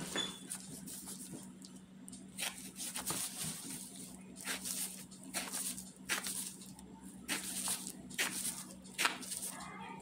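Serrated knife cutting into a whole peach held in a plastic-gloved hand: short, irregular scraping strokes with crinkling of the plastic glove, over a steady low hum.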